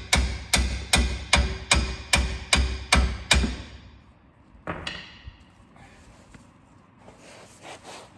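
Hammer striking metal on stuck front-suspension hardware: a steady run of ringing blows, about two a second, then one last blow after a short pause. The part is seized and will not come free.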